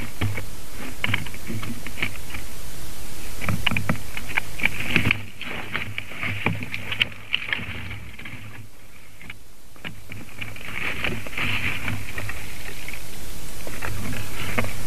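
A male white-tailed eagle working nest material with its beak: rustling of dry grass and sticks with scattered light clicks and cracks, over a steady noisy background and a low hum. The background drops about five seconds in and builds back up toward the end.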